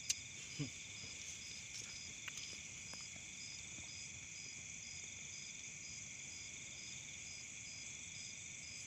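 Night chorus of crickets and other insects: a steady high trilling, with one insect chirping about twice a second.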